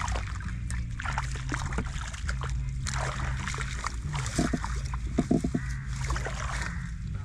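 Water splashing and sloshing as someone works through shallow water catching fish by hand, over a steady low hum. A few short, louder sounds come about four and five seconds in.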